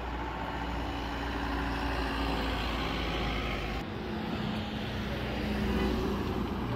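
Motor vehicle engines and road traffic: a steady hum with a low rumble underneath. The sound changes abruptly about four seconds in.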